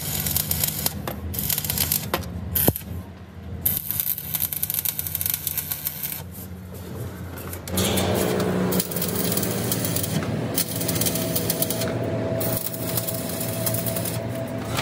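Electric arc welding on steel plate inside a fuel tank: the arc gives an irregular crackle over a low steady hum. About eight seconds in this gives way to a steadier drone with a held tone.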